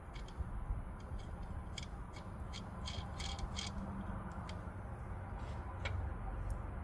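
Scattered light metallic clicks and rattles of hand tools and hardware being handled, with a faint low hum underneath.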